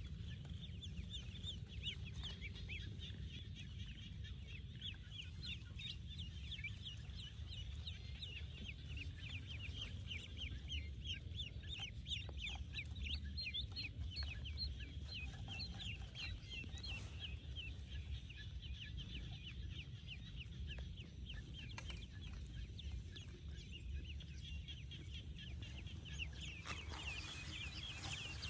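A brood of ducklings peeping continuously, with many short, high calls overlapping, over a steady low rumble.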